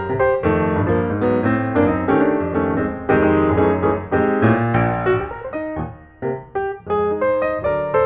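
Piano music, many notes played in quick succession, with a brief dip about six seconds in.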